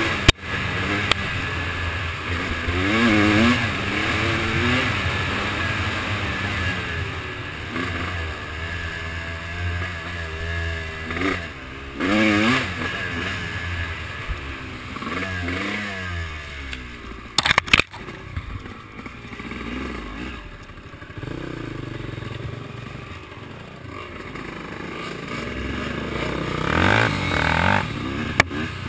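Small off-road vehicle engine running and revving up and down again and again, with a cluster of sharp knocks and clatter a little past the middle.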